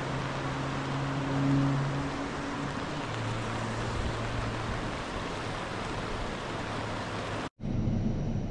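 Steady rushing noise of rain and river rapids, with a low droning hum underneath that drops in pitch about three seconds in. Near the end the sound cuts out for an instant and comes back as a rougher, more muffled noise.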